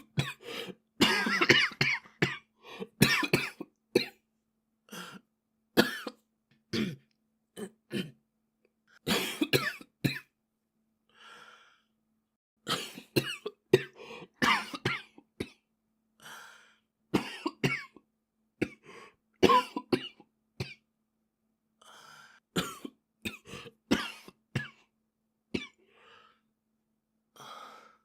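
A boy coughing over and over: short, sharp coughs, some alone and some in quick runs of two or three, with gaps of about a second between them and a few quieter ones mixed in.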